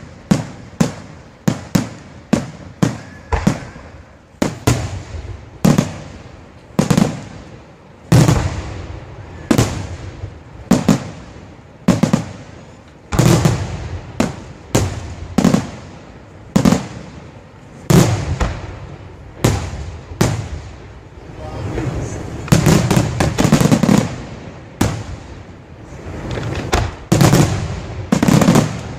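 Aerial fireworks shells bursting in quick succession, a steady barrage of sharp bangs, each trailing off, about one or two a second. The barrage thickens into overlapping bangs and crackle a little after the middle and again near the end.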